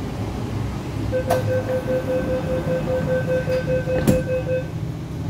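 Door-closing warning beeps on an MTR R-Train at the platform: a rapid beep, about four a second, sounding for about three and a half seconds over the train's steady rumble. A knock about a second in and a louder bang near the end as the sliding doors shut.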